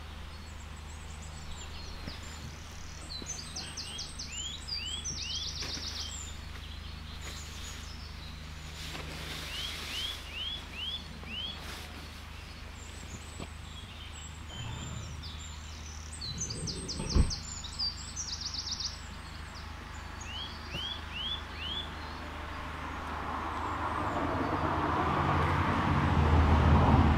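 A songbird sings several short bursts of quick down-slurred chirps and fast trills over a steady low hum. One sharp click comes about two-thirds of the way through, and the noise of a passing vehicle swells up near the end.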